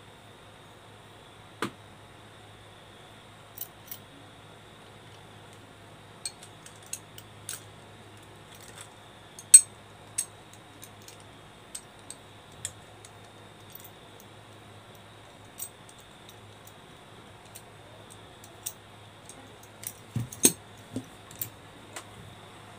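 Scattered sharp metallic clicks and clinks from a hand flaring tool's steel clamping bar and yoke and a copper pipe being handled, as the flared pipe is taken out of the clamp bar. The loudest click comes about nine seconds in, with a quick cluster of clinks near the end, over a faint steady hum.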